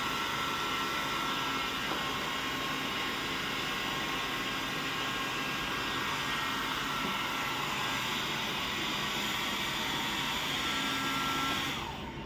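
Hand-held hair dryer running on its lowest, cold-air setting: a steady rush of air with a faint whine. It cuts off suddenly near the end.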